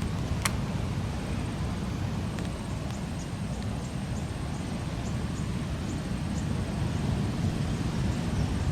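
Steady, fluctuating low rumble of wind on the microphone, with faint short high chirps scattered through it and one sharp click about half a second in.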